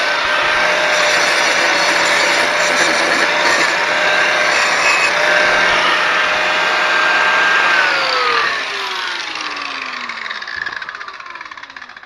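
Angle grinder cleaning up the metal of a broken snowblower auger blade before welding, running steadily, then switched off about eight seconds in, its whine falling in pitch as it spins down.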